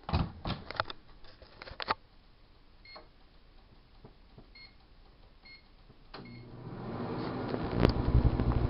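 A GE Dual Wave microwave oven being set and started: a few clicks and knocks, four short keypad beeps, then the oven starts with a steady low hum that builds up, with one sharp click near the end.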